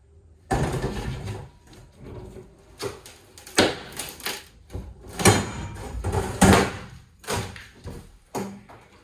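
A run of irregular knocks, clanks and scrapes as parts are pulled and handled during teardown work, about a dozen hits of varying strength.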